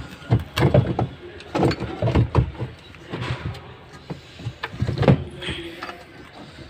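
Irregular knocks and clatter from a washing machine spin motor being fitted into place, with a few louder strikes about five seconds in.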